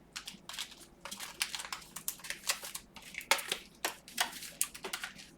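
Plastic crinkling and rustling in quick, irregular crackles as trading cards and their wrapping are handled.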